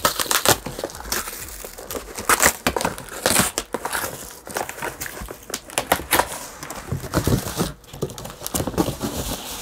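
Cardboard packing pieces and plastic wrap rustling, crinkling and scraping as parts are pulled out of a shipping box, in a run of irregular, sharp crackles.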